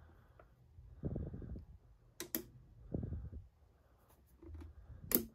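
A toggle switch on an automotive test demo board clicked off and on by hand: a close pair of sharp clicks a little past two seconds in, a fainter one later, and a louder click near the end, with duller low thuds between. Each flick briefly cuts the circuit, making a voltage dropout.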